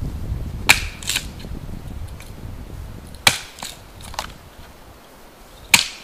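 Hatchet chopping small pieces of firewood on a wooden chopping block: three sharp chops, about a second in, halfway through and near the end. The first two are each followed by a smaller knock.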